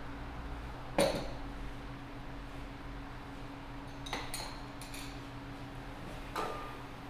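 Cups, saucers and metal utensils being handled at a coffee bar: a sharp clink about a second in, a few lighter clinks around four to five seconds, and another near the end with a short ring. A steady low hum runs underneath.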